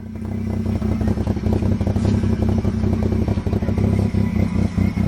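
A vehicle engine running steadily and loudly, with a fast rough pulse.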